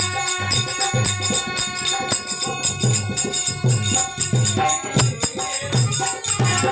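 Instrumental interlude of Rajasthani devotional folk music between sung lines: a drum beating a steady rhythm about twice a second under jingling hand percussion and sustained instrumental notes.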